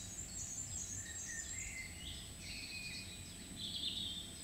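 Small birds singing, a continuous string of short, changing high phrases, one louder near the end, over a low steady background rumble.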